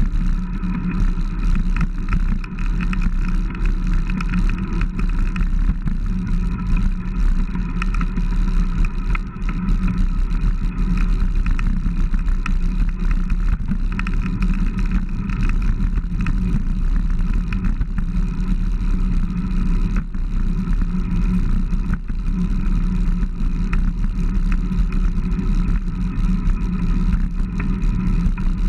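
Steady wind and road noise on a handlebar-mounted camera on a moving road bike: a constant low rumble with a faint steady hum, unchanging throughout.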